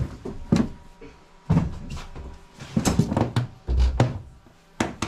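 Irregular knocks and thumps of hatch lids and equipment being handled in the enclosed cabin of a fiberglass lifeboat, about eight in a few seconds, sounding hollow in the small space.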